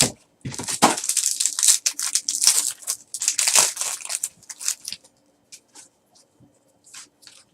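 Packaging being torn open and crinkled, a dense crackling rustle for about five seconds, likely the wrapping of a card mini box or pack. It is followed by a few faint light clicks.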